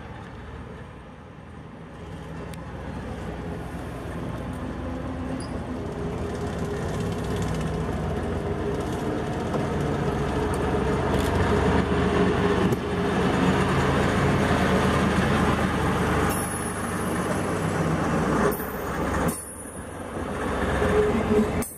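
Plymouth switcher locomotive's engine running steadily as it pulls a caboose past at low speed, growing louder as it approaches and passes, with the rumble of the caboose rolling by on the rails near the end.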